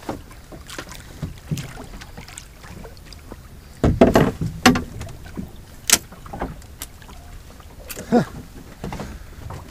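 Knocks and clicks of handling aboard a small open boat as a ling is brought in by the trace, the loudest a cluster of thumps about four seconds in, over a steady background of wind and water.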